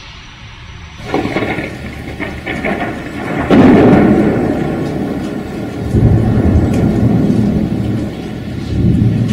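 Thunder in a rainstorm: a crackling roll begins about a second in, breaks into its loudest rumble about three and a half seconds in, and keeps rolling with further swells, over the steady hiss of rain.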